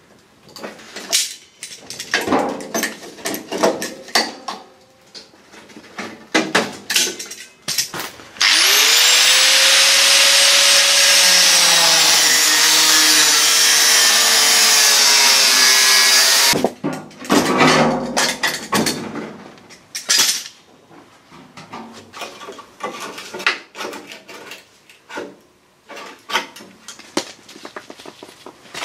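Metal clanking and scraping as rusty sheet steel is worked off a van's wheel arch with locking pliers. About a third of the way in, an angle grinder spins up with a rising whine and grinds steadily for about eight seconds, grinding down old spot welds along the arch, then cuts off suddenly. The clanking and scraping of loose metal follows.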